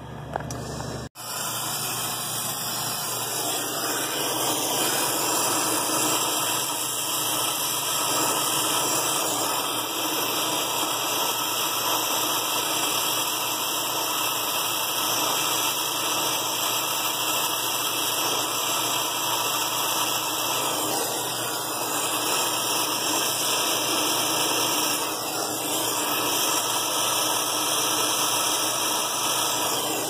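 Brazing torch flame hissing steadily while a copper refrigerant line is brazed onto a freezer compressor's stub. The hiss begins after a brief cut about a second in.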